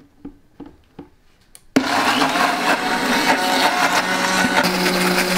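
A few light plastic clicks as the blender lid goes on, then a countertop blender switches on suddenly about two seconds in and runs at full power, puréeing fresh basil, garlic and olive oil into a sauce; near the end its sound settles into a steadier hum.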